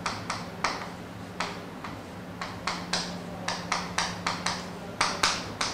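Chalk writing on a blackboard: a string of quick, irregular taps and short scratches as strokes of a formula are written.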